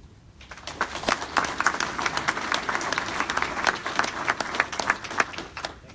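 Audience applauding: many hands clapping, beginning about half a second in and keeping up steadily, easing a little near the end.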